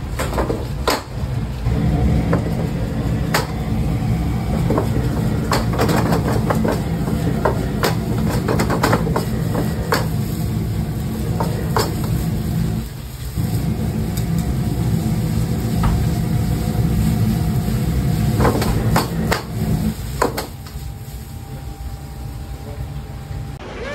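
Restaurant gas wok burner on high flame, a steady low roar, with sharp knocks and clatter of long chopsticks and metal against the wok as noodles are stir-fried. The roar dips briefly about halfway through and drops away near the end.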